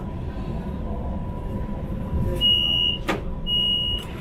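Door-closing warning on a monorail: two high electronic beeps, each about half a second long and a second apart, with a sharp thud between them as the doors shut, over the train's low rumble.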